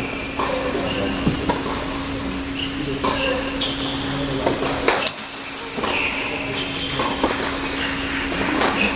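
Tennis shoes squeaking in short high chirps on a hard indoor court, with several sharp ball strikes, echoing in a large hall over a steady hum.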